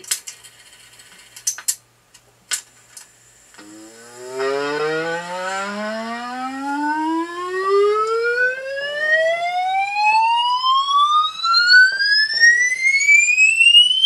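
A few sharp clicks of handled parts, then, about four seconds in, an electronic test tone that sweeps steadily upward in pitch from a low hum to a high whistle, with fainter overtones above it.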